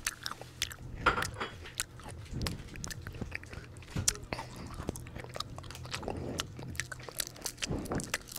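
Close-miked eating sounds into a small handheld microphone: crisp bites, wet chewing and mouth clicks, coming irregularly throughout, over a steady low hum.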